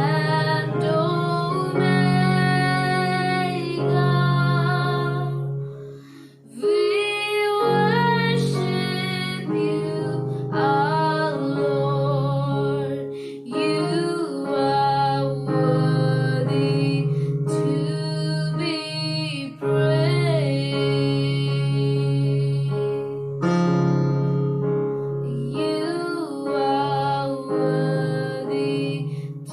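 Worship song: a female voice singing over sustained keyboard chords, with a short break about six seconds in.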